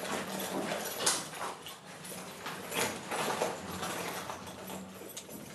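Footsteps knocking on a hard floor as people step into a lift, then the lift's steel sliding doors closing.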